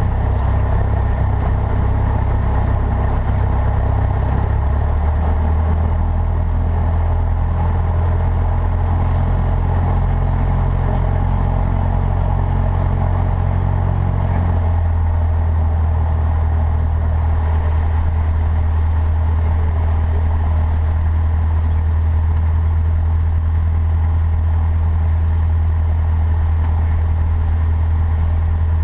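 Cessna 152's four-cylinder Lycoming O-235 piston engine and propeller running steadily, a constant low drone heard through the cockpit intercom. The engine note drops slightly in pitch twice, about five seconds in and again around fifteen seconds in.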